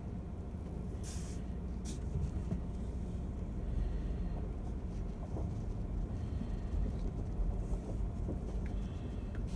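Pickup truck driving slowly, a steady low engine and road rumble, with a couple of short rattles about one and two seconds in.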